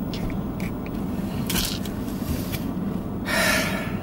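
Handling noise as a camera is set up at close range inside a car: scattered clicks and short scrapes, then a louder scrape lasting under a second about three seconds in, over a steady low cabin hum.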